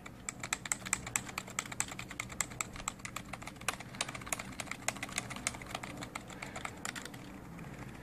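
Fast typing on a Dell SK-8135 membrane keyboard with rubber dome switches: a rapid patter of soft key clicks that thins out about a second before the end.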